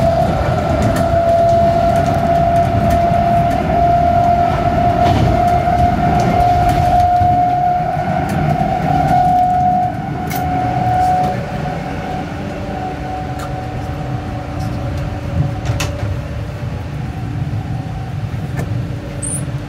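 Passenger train running, heard from inside the carriage: a steady low rumble from the wheels and running gear, with a high steady whine that rises slightly and dies away about halfway through, and scattered clicks and knocks.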